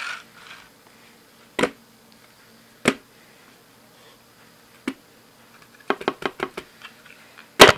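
Sharp plastic clicks and knocks from a Losi 1/24 scale short course truck's chassis as it is pressed down by hand and let go, the suspension bottoming out. A few single clicks seconds apart are followed by a quick run of louder clicks near the end.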